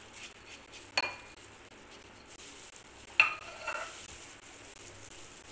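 Two ringing clinks of a spoon and glass bowl, about two seconds apart, as seasoning is knocked out into the flour, with the soft scrape of a spatula stirring dry flour and spices after them.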